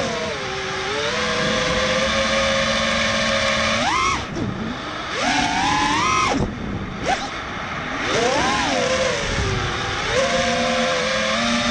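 ImpulseRC Alien 5-inch FPV racing quadcopter's motors and propellers whining, the pitch swooping up in sharp bursts of throttle and dropping away as the throttle is cut, several times over. Rushing wind noise runs under it.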